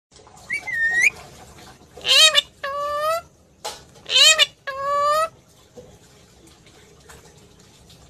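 Pet parakeets squawking: one short call about half a second in, then two loud pairs of harsh calls about two and four seconds in, each a short call that rises and falls followed by a longer, steadier one.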